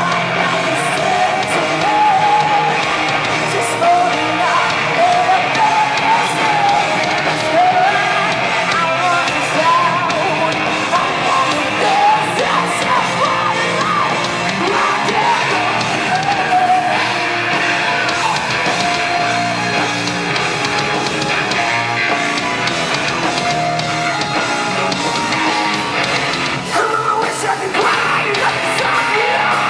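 A live rock band playing loud, heavy rock with electric guitar and a sung, partly yelled lead vocal, without a break.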